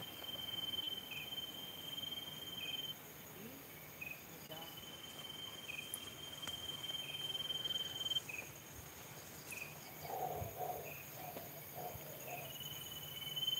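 Crickets calling: a steady, high trill that runs a few seconds at a time with pauses, and short, slightly lower chirps repeating about every second and a half.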